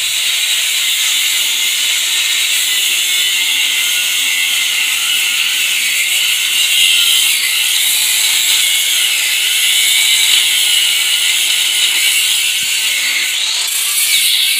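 Grinder with a cutting disc cutting through metal under a car, a steady high whine that wavers in pitch as the disc bites.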